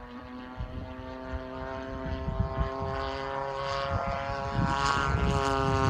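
Radio-controlled model airplane's motor and propeller droning at a steady pitch, growing steadily louder as the plane comes closer.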